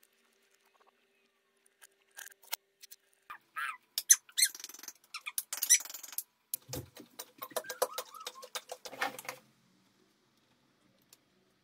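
Irregular clicking, rattling and rustling of hands handling tools, wires and plastic modular circuit breakers, with a few short squeaky sounds among them. The sounds stop shortly before the end.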